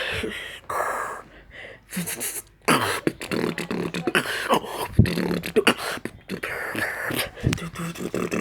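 Freestyle vocal beatboxing: mouth-made kick drums, snares and clicks in a fast rhythm, with a brief lull about a second in.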